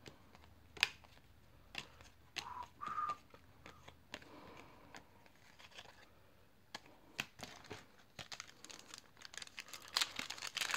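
Baseball cards flicked one at a time from the front to the back of a stack, giving faint, scattered snaps of card stock. Near the end, the crinkle of a foil pack wrapper being torn open.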